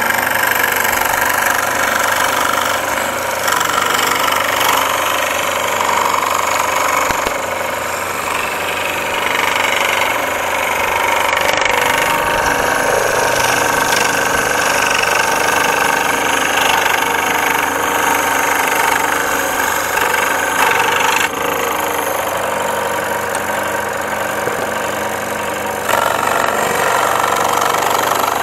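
Makita scroll saw running, its blade cutting through thin plywood. The sound is steady, with a sudden drop in level about three-quarters of the way through and a sudden rise near the end.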